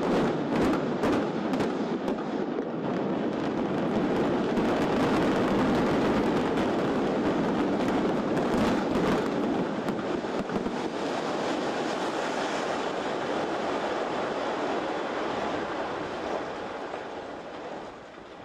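Explosive demolition charges in a high-rise building going off in a rapid string of sharp bangs, followed by the long, low rumble of the tower collapsing, which fades near the end.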